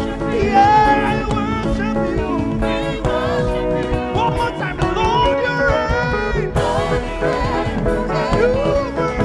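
Live church praise-and-worship band playing, with held chords underneath and a wavering, gliding vocal line on top.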